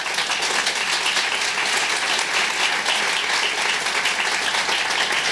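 Church congregation applauding, a steady, dense clapping that holds at one level throughout.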